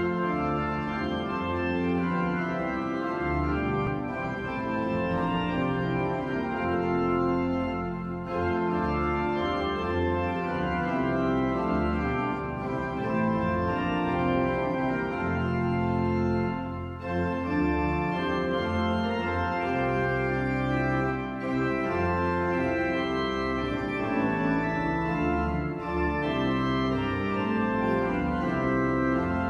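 Organ music: slow, sustained chords that are held and then change every second or two, with a full low bass.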